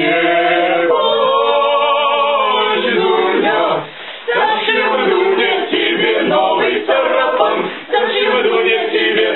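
A group of young men singing together without accompaniment, with brief breaks between phrases about four and eight seconds in.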